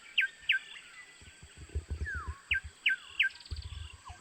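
Forest birds calling: quick repeated sharp notes, about three a second, a downward slurred whistle about two seconds in, and a brief fast trill near the end, over a steady high insect drone. A few low knocks sound under the birds.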